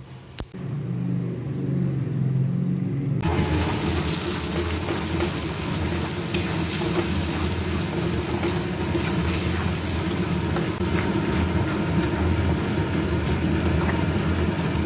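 Wet ground masala paste (onion, ginger, chili, tomato, melon seed and cashew) frying in hot oil in a kadai and being stirred with a metal spatula. The sizzling starts abruptly about three seconds in and holds steady over a low rumble.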